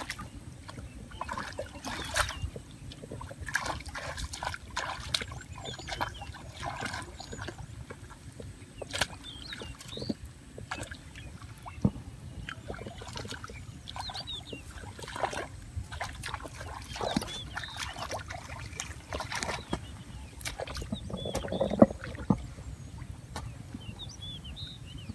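A hoe chopping and scraping into wet mud and shallow water, with irregular sloshing and splashes; the loudest splash comes near the end. Small birds chirp faintly now and then.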